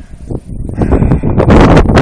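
Wind buffeting the phone's microphone, rough and irregular, quieter at first and then gusting hard about a second and a half in.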